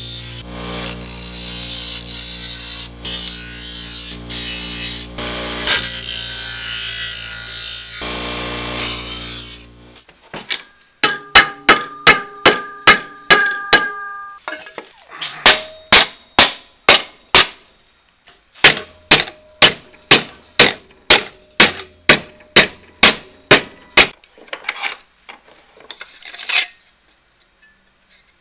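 Bench grinder running, with its wheel grinding stainless steel sheet in short passes, then switched off about ten seconds in. Then a hammer strikes the stainless sheet over a wooden form to bend it, about two to three sharp, ringing blows a second in three runs with short pauses.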